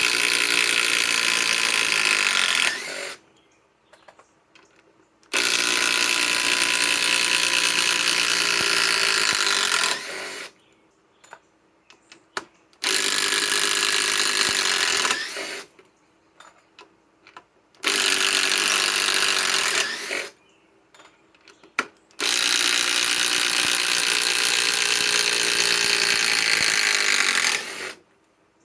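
Metabo HPT WH18DDX 18-volt subcompact cordless impact driver hammering on 4-inch TimberLOK screws in timber, in five trigger runs of about three to six seconds each with short pauses between.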